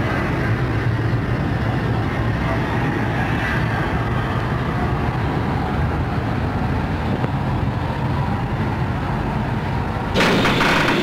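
Steam locomotive 52.3879 moving slowly: a steady low rumble with hiss and no clear exhaust beat. About ten seconds in, a louder, brighter hissing sound with a rapid clatter cuts in.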